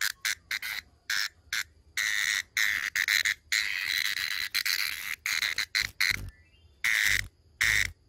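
Brown cicada held in the fingers, giving a loud, high buzzing distress call in stop-start bursts: several short buzzes, a long one of about three seconds in the middle, then three short ones.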